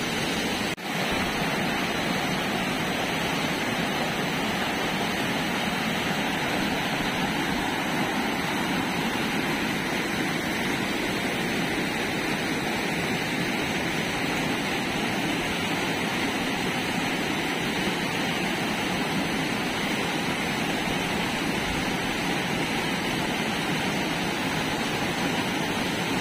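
Waterfall on a rain-swollen river: a steady rush of muddy floodwater pouring over rocks, the river running high after the rains.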